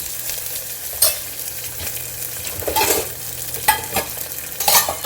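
Onions, chilies and ginger-garlic paste sizzling in hot oil while a spoon stirs them, with a few sharp scrapes and clacks of the spoon against the pot.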